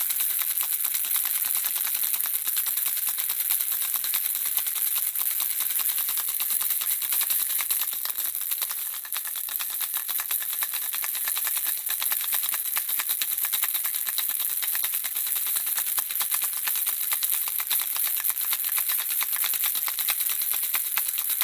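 Handheld baby rattle shaken steadily: a dense run of fast, tinkling clicks from the small objects inside. It eases off briefly about nine seconds in.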